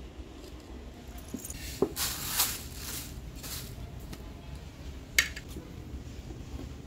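Kitchen vessels and utensils being handled while sesame is prepared: a few sharp metallic clinks and knocks, with two short rustling swishes a couple of seconds in.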